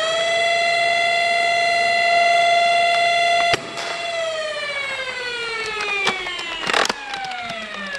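The flywheel motors of a BlasterCore afterburner on a Nerf blaster spin up to a loud, steady high whine. About three and a half seconds in there is a sharp click as a dart is fired, and the whine then falls slowly in pitch as the flywheels coast down. A few mechanical clacks and a short rattle come near the end.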